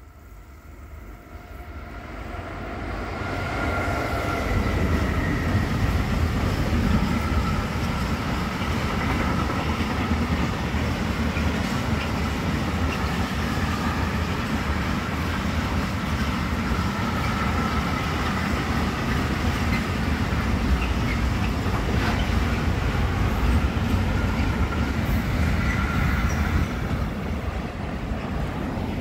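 Freight train rolling past: a steady low rumble of wagon wheels on the rails with a thin, wavering high wheel squeal over it. It builds up over the first few seconds as the train arrives, then holds steady.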